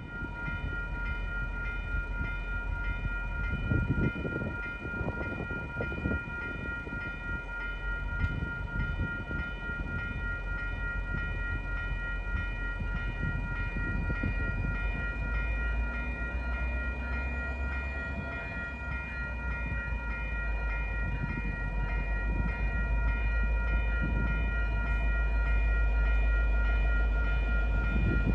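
Grade-crossing warning bell ringing in a steady rapid repetition while a diesel locomotive pulling a flatcar rumbles slowly past; the engine rumble grows louder in the second half as it draws level.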